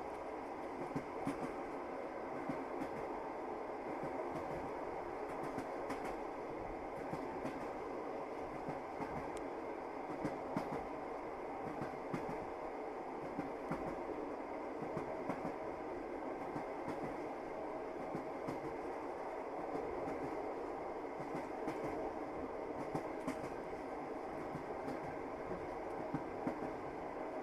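Passenger train running along the track: a steady rumble of the carriage with irregular clacks of the wheels over rail joints.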